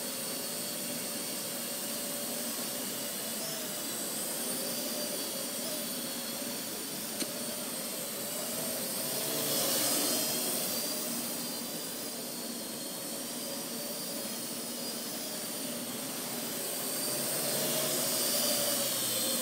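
Parrot AR.Drone 2.0 quadcopter in flight: the steady whine of its four geared electric motors and propellers, wavering slightly in pitch as it manoeuvres. It grows louder about halfway through and again near the end as the drone comes closer.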